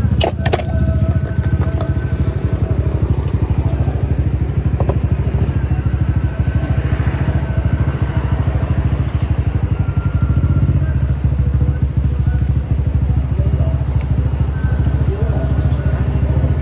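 Dirt bike engine idling steadily with a fast, even low pulse. There are a couple of sharp clacks just after the start.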